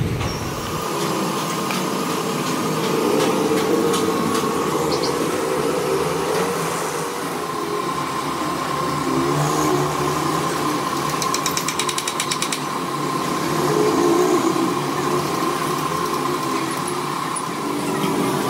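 Steady machine hum with a faint whine, under scattered clicks and scrapes from handwork. About eleven seconds in comes a brief run of fast, even ticking.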